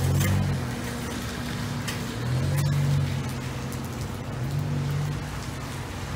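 Rain falling on a wet parking lot while cars drive past, their low engine hum swelling at the start, about two and a half seconds in, and again near five seconds.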